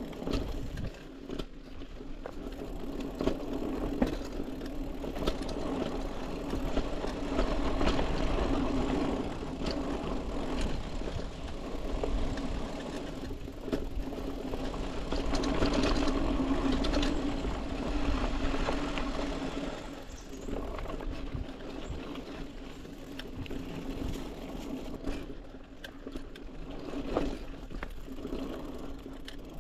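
Trek Marlin 6 hardtail mountain bike rolling downhill on a dirt singletrack: a steady whir from the tyres and drivetrain, with scattered short knocks and rattles over bumps, louder at times.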